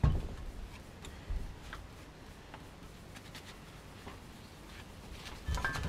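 Aluminium Subaru EJ20 engine block half being handled and turned over on a workbench: a clunk right at the start, a few faint ticks, and a short run of knocks near the end, with quiet room tone between.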